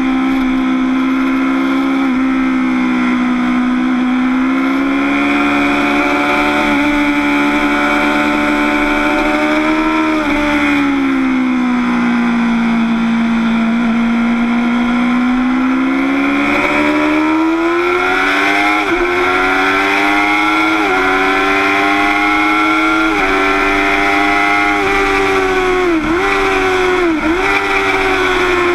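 Motorcycle engine heard from the bike itself, with wind noise. The engine holds a steady note through a long leaned-over corner. It then rises as the bike accelerates onto the straight, with several quick dips in pitch near the end.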